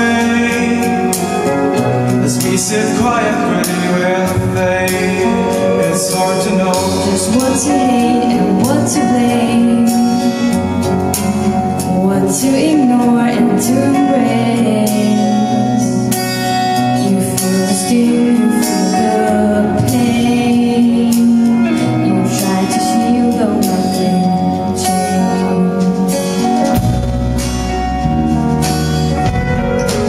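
Live pop ballad played by a band: strummed acoustic guitar with bass and drums, and a male and a female voice singing the song. The bass and drums grow heavier near the end.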